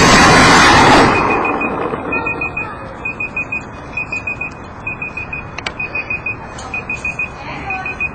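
The landed tricopter's motor and propeller noise cuts off about a second in. An electronic beeper then sounds in short groups of about four quick high beeps, roughly once a second.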